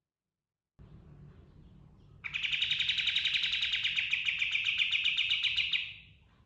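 Pied triller (kapas tembak) singing one rapid rolling trill of evenly repeated notes, lasting about three and a half seconds, which starts abruptly and tails off near the end.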